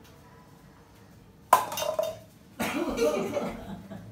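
A man coughing hard twice, about a second and a half in and again a second later, after swallowing a mouthful of soy sauce and vinegar.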